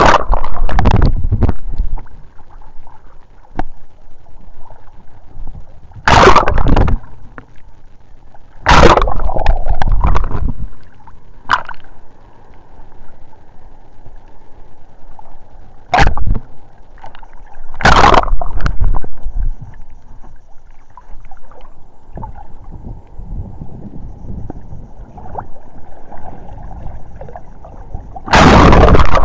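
Sea waves washing over a camera at the water's surface. About six loud splashing, gurgling surges come as water covers the housing, with muffled water noise between them.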